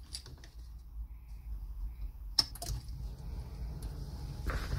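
Quiet car cabin with a faint steady low rumble, one sharp click about two and a half seconds in and a short rustle near the end.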